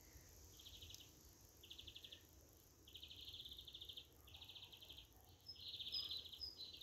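Faint, high-pitched trilling calls in short repeated bursts, each lasting half a second to a second, with a few thin, higher chirps near the end: small creatures calling in a garden.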